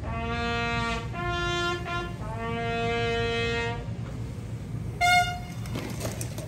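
Military bugle call: three long held notes, low, a fifth higher, then low again, followed about five seconds in by one short, louder, high note.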